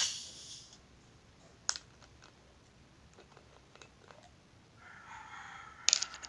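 Cap being twisted off a plastic Coca-Cola bottle. The seal breaks at the start with a sharp psst of escaping carbonation gas that fades within half a second, followed by clicks of the plastic cap turning. Near the end a whining hiss comes from gas escaping past the loosening cap, and a couple of sharp clicks follow as the cap comes free.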